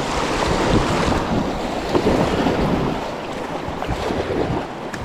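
River water rushing and splashing around an inflatable raft, with wind buffeting the microphone.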